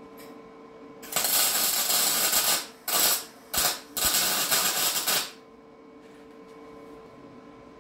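MIG welder's arc crackling as a steel control-arm bracket is welded to the frame, in four bursts from about one to five seconds in: one long run, then three short ones. A faint steady hum runs underneath.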